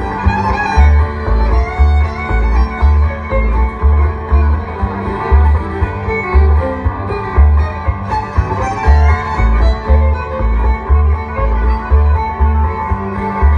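Bluegrass band playing an instrumental break, with a fiddle taking the lead over guitar, banjo and upright bass. The upright bass plays steady notes about twice a second.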